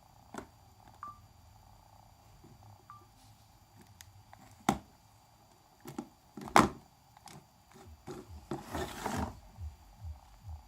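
A cell phone being handled between ringtones: two short key beeps early on, then several sharp clicks and knocks of buttons and handling, the loudest about halfway through, and a brief rustle near the end.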